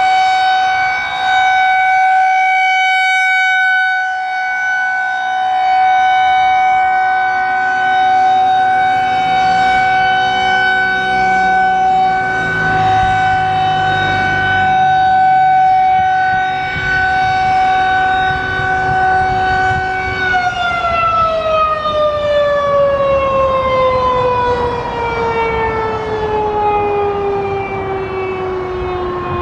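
Federal Signal 2001-130 rotating electromechanical siren sounding a steady full-alert tone with rich overtones. About twenty seconds in, the motor is shut off and the pitch falls steadily as the siren winds down at the end of the alert. A low rumble runs underneath from about nine seconds in.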